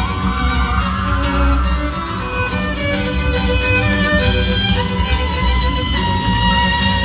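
Recorded flamenco-style music, a violin carrying the melody over a steady low pulse.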